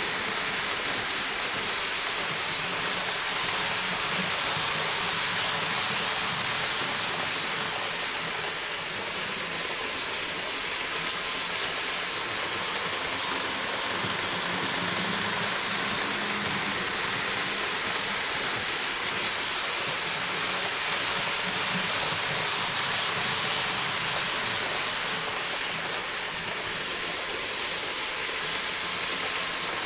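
HO-scale model train running on an analog layout: a steady whirring hiss of the small electric motor and metal wheels rolling on the rails, with a faint steady hum.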